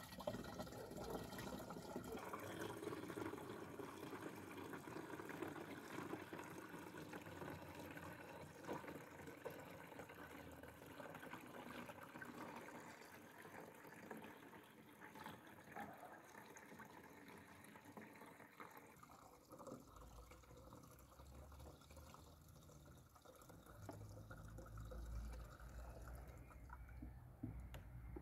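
Water mixed with copper fungicide pouring from a plastic bucket into the tank of a plastic hand pressure sprayer: a steady stream of liquid filling the tank, which thins out after about nineteen seconds as the bucket empties.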